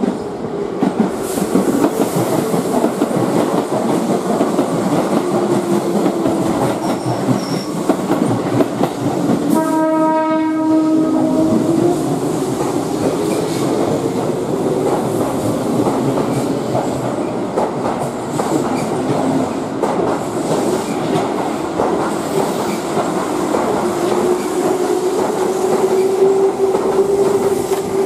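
Keihan electric train running through the station, its wheels clattering over the rail joints, with a rising motor whine. A horn sounds once, a steady note held for about two seconds, about ten seconds in.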